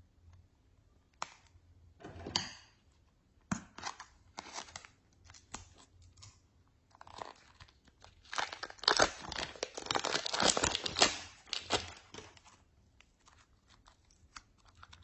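Slime being mixed and worked by hand: irregular squishing crackles and clicks, densest and loudest from about eight to twelve seconds in.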